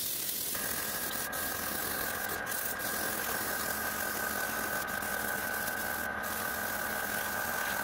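Airbrush spraying paint: a steady hiss of air with a steady high tone running through it.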